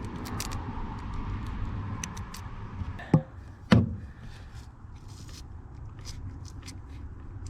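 Two sharp knocks about half a second apart, with scattered small clicks of hands handling parts, over a low steady rumble.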